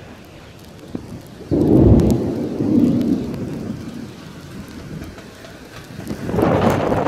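Thunder from an overhead storm: a sudden deep rumble about a second and a half in that slowly fades over a few seconds, then a second loud rumble rising near the end.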